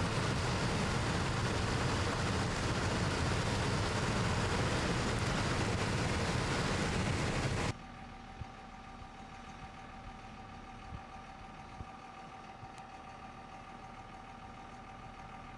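Loud steady rushing noise, heaviest in the bass, that cuts off abruptly about eight seconds in. After it comes a much quieter steady hum with a faint whine: vehicle engines idling.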